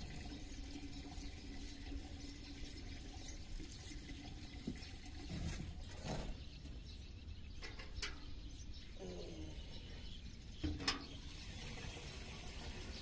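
Countryside ambience: a steady running-water wash with a few short bird calls scattered through it.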